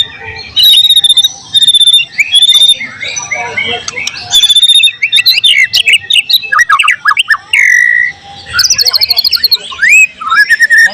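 White-rumped shama (murai batu) singing a loud, varied song of clear whistles, fast sweeping trills and chattering phrases, with mimicked calls of other birds worked in.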